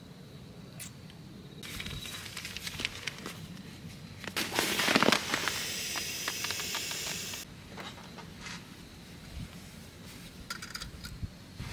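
Crinkly rustling of bedding and a quilted padded blanket being handled and pushed into the back of a car, loudest about halfway through, then stopping, with a few lighter rustles near the end.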